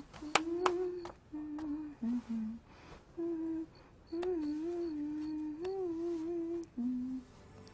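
A woman humming a wordless tune in short held phrases, with a few sharp clicks in the first second.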